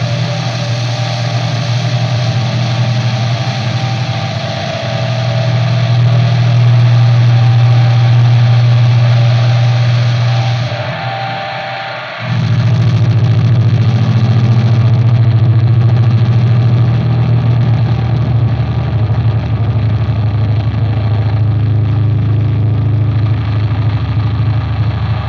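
Electric guitar played through effects units and amplifiers as a loud, dense, sustained low drone in a textural improvisation. It dips briefly about twelve seconds in, then comes straight back at full strength.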